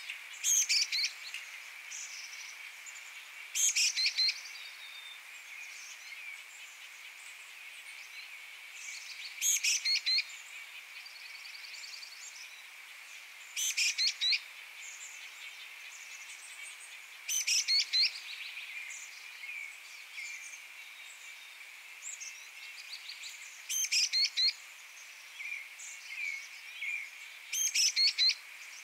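Black-capped chickadee calling: seven short bursts of a few quick notes, several seconds apart, over a steady faint high hum.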